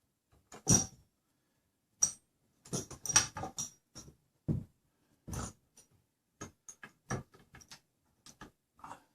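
Irregular sharp clicks, clinks and knocks of tools and metal hardware being handled, about a dozen spread unevenly, the loudest about a second in and about three seconds in.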